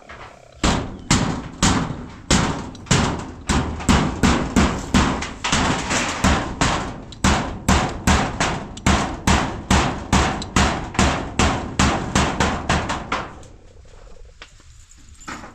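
A quick, even series of strikes or strokes, about two to three a second, that stops abruptly about thirteen seconds in.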